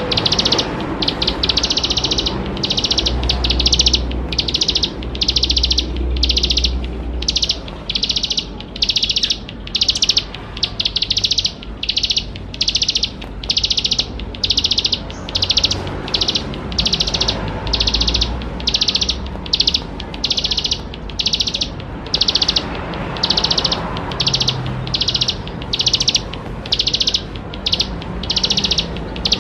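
Ciblek sawah singing: a long run of short, high, buzzy notes, repeated a little more than once a second with short gaps between them.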